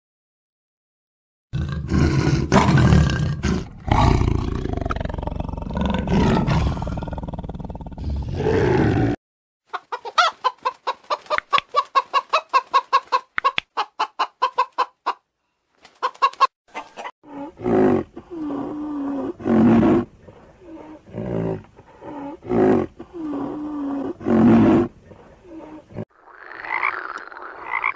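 A sequence of separate animal calls: after a second and a half of silence, a loud, low roar lasting about seven seconds. Then hens cluck in a fast run of short notes for about five seconds, followed by a string of short calls from rhinoceroses, and near the end a frog starts croaking.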